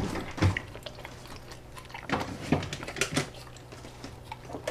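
Husky-malamute cross chewing and smacking on chunks of minced-meat roll, with irregular sharp clicks and smacks.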